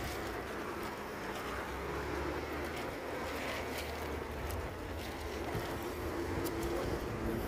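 Outdoor street background: a steady low rumble of road traffic, with a faint engine hum that comes in during the second half.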